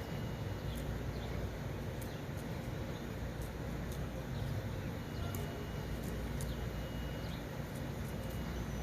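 Woodpecker pecking: sharp single taps at irregular intervals, over a steady low rumble.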